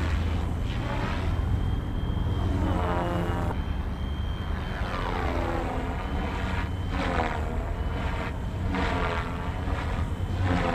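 FlyWing FW450 V2 electric RC helicopter in flight: the buzz of its spinning rotor blades with a steady high whine. The sound sweeps up and down in pitch as the helicopter passes back and forth.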